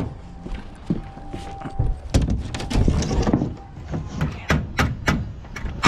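Nail gun driving nails into plywood sheathing on a wooden frame, firing as a series of sharp shots that come quicker and closer together in the second half.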